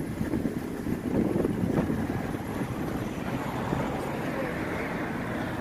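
Wind buffeting the microphone in gusts, loudest in the first couple of seconds, over the steady low running of a car engine at idle.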